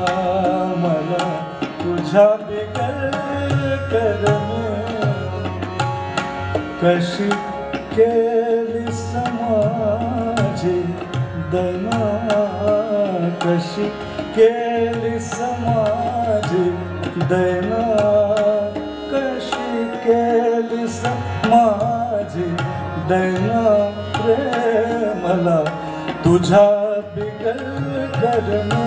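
Male vocalist singing a Marathi song live, his voice gliding through the melody, accompanied by harmonium and tabla.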